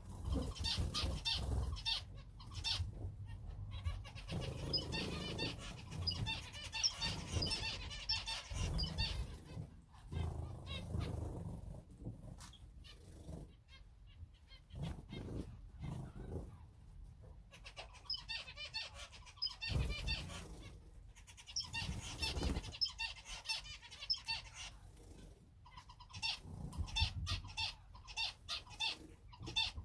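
Small cage birds chirping in rapid clusters of short calls, with bursts of wing flapping and low knocks from movement in the cage.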